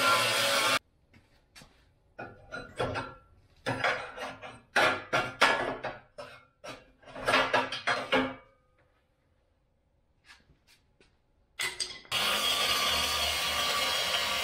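Angle grinder with a cutoff wheel cutting into a Jeep XJ's rear bumper. It stops abruptly under a second in and is followed by several seconds of scattered sharp knocks as a hand tool works at the bumper. After a short quiet spell the grinder cuts again near the end.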